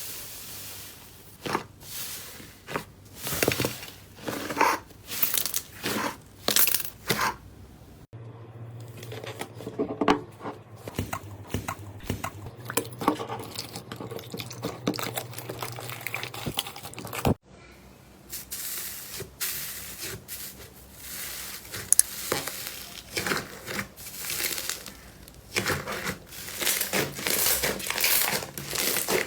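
Slime being pressed and squeezed by hand close to the microphone, giving repeated crackling, popping and crunching. The sound changes abruptly about 8 and 17 seconds in as one clip gives way to the next, going from separate presses to dense small clicks and then to steady crunching.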